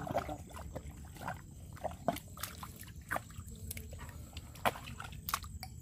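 Light water sloshing and trickling in shallow mangrove mud, with many scattered sharp clicks and snaps and a faint steady high-pitched tone.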